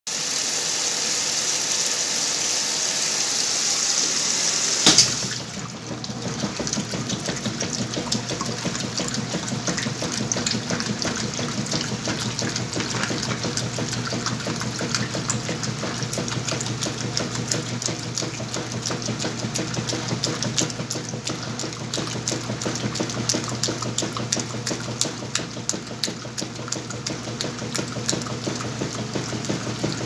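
Whirlpool top-load washing machine filling: water pours into the tub with a steady hiss. About five seconds in, the fill stops with a click. The agitator then runs, its motor humming steadily under the churning and sloshing of the soapy water and soaked blankets.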